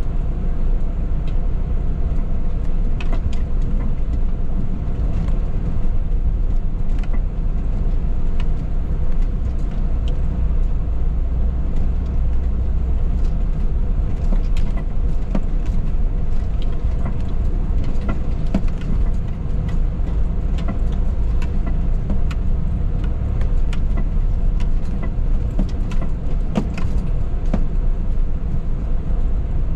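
Steady low road rumble of a Renault Master camper van driving along the road, with scattered light clicks.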